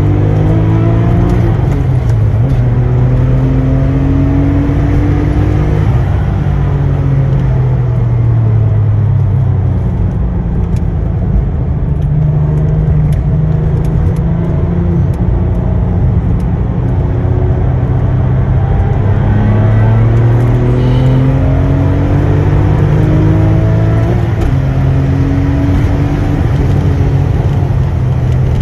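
Porsche 996 Turbo's twin-turbo flat-six engine heard from inside the cabin under hard track driving. The engine note repeatedly climbs in pitch through the gears and falls away on lift-off and braking.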